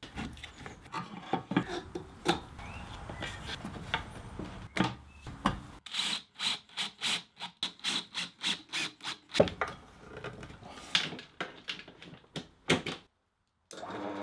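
Workshop assembly sounds on a wooden bench: a small electric motor shifted and bolted onto a painted wooden base, with scattered knocks and rubbing, then a run of quick, evenly spaced scraping strokes, about three a second, in the middle.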